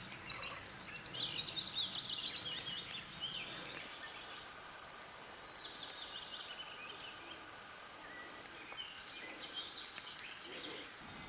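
Songbirds singing. A high, fast buzzing trill runs for about the first three and a half seconds, then a song of notes falls in pitch, and scattered chirps come near the end.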